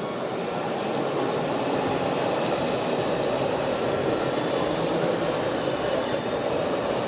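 Steady mechanical running noise from RC model construction machines and trucks, with short thin whines coming and going over a constant hum.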